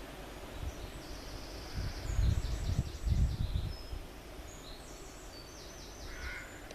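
A small songbird singing two phrases of quick repeated chirps and trills, with low rumbling noise about a third of the way through.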